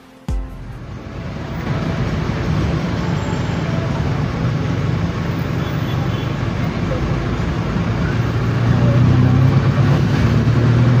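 Road traffic: a steady wash of motor-vehicle noise with a low engine hum, cutting in abruptly just after the start and growing louder near the end.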